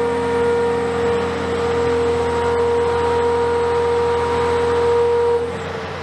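Komatsu PC490 demolition excavator running, with a steady, loud, high-pitched whine held over the low engine hum; the whine cuts off a little before the end.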